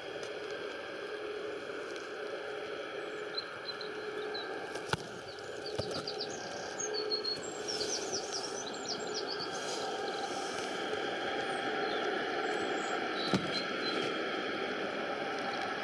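Distant jet airliner engines, a steady hum that slowly grows louder, with small birds chirping in bursts through the middle and two sharp clicks.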